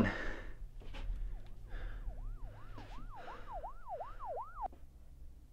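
A faint yelping siren, its pitch swooping up and down about three times a second for a few seconds, starting about a second in and stopping shortly before the end.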